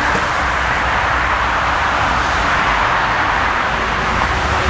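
Jet engines of a twin-engine airliner running at high power as it rolls along the runway: a loud, steady rushing noise over a low rumble.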